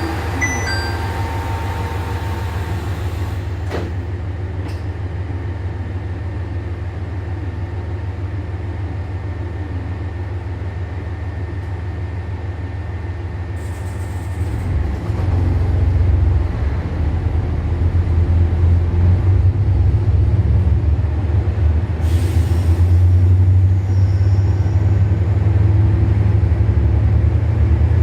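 KiHa 189 series diesel railcar engines idling with a steady low hum, then throttling up about halfway through and running louder as the train pulls out. The door chime's last notes are heard at the very start, with short hisses of air a couple of times.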